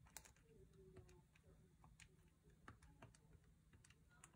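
Faint clicks of keys being pressed on a Texas Instruments TI-30Xa scientific calculator, about ten soft, irregularly spaced taps as a number is entered.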